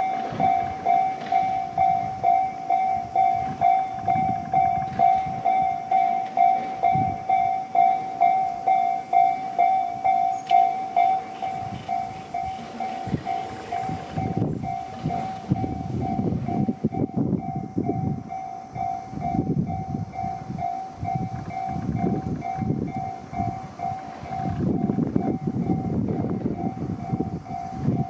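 Japanese level-crossing warning bell ringing its kan-kan tone, a little under two strokes a second. From about halfway through, a Tarumi Railway diesel railcar runs across the crossing, its wheels and engine rumbling in uneven bursts under the still-ringing bell.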